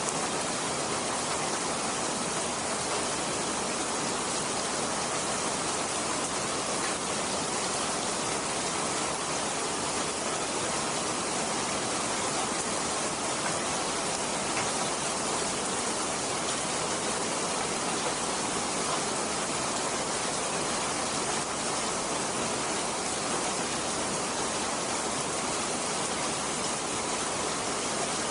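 Steady rain falling, an even hiss that holds the same level throughout, with no thunder.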